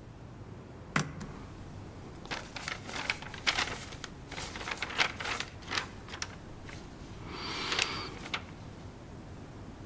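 Irregular clicking of keystrokes on a computer keyboard, a single click about a second in, then a run of keystrokes, followed by a brief rustle near the end.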